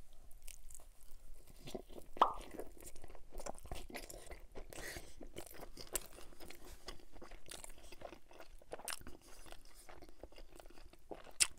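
Close-miked chewing of a bite of pepperoni pizza: the crust crunching and wet mouth clicks, with a sharper crunch about two seconds in.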